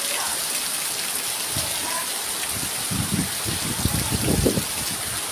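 Heavy rain pouring down in a steady hiss, with low, irregular buffeting of wind on the microphone about three seconds in.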